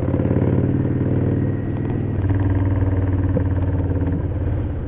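Victory Vegas Jackpot's V-twin engine running steadily while riding; the engine note drops briefly about two seconds in and then settles again.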